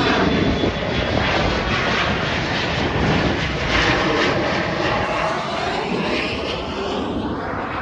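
Jet airliner passing low overhead, its engines a loud, steady rush that slowly fades toward the end.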